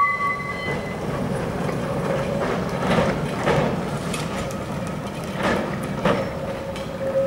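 Heritage electric tram running along street track: a low rumble with several sharp clacks of the wheels over the rails. A steady high two-note tone cuts off about a second in, and a steady hum comes in near the end.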